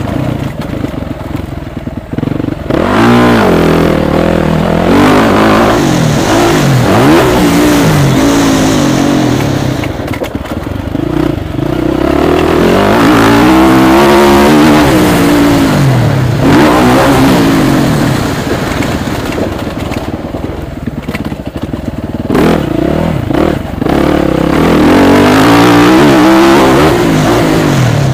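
Suzuki motocross bike engine revving hard and easing off again and again, its pitch rising and falling with throttle and gear changes as it is ridden over a dirt track. It goes quieter for a few seconds about ten seconds in and again around twenty seconds.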